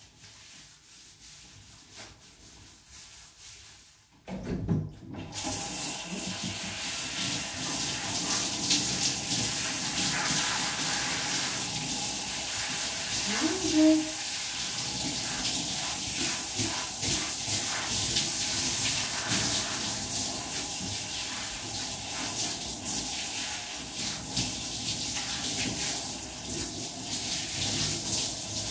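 Quiet at first, then about four seconds in a handheld shower starts running and its spray hisses steadily as a dog is rinsed. A brief higher-pitched sound is heard about halfway through.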